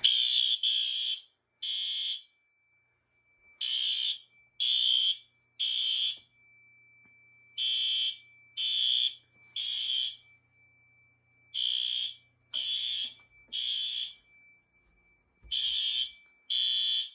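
Fire alarm horns sounding the temporal-3 evacuation pattern: three short blasts, a pause, then three again, over and over, set off by a manual pull station. A faint steady high tone runs beneath the blasts.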